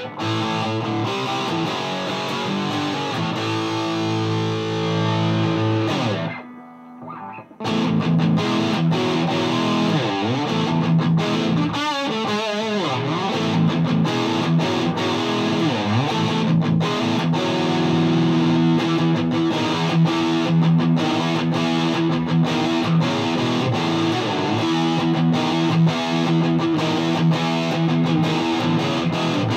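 Gibson Les Paul electric guitar through a Mesa Boogie Dual Rectifier tube amp, set to Spongy power mode with tube rectification, into a Marshall 1960A 4x12 cabinet: distorted chords and riffs. The playing breaks off briefly about six seconds in, then resumes with bent notes.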